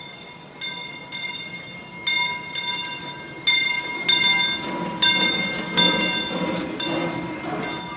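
The bell of the 1894 Baldwin steam locomotive Fred Gurley ringing about twice a second as the train pulls into the station. From about the middle on, the rumble of the engine and cars passing close joins it.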